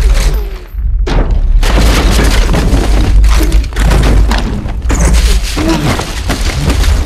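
Film sound effects of a street exploding in slow motion: continuous heavy booms and crashing debris over a deep rumble. It drops out briefly about a second in, then resumes.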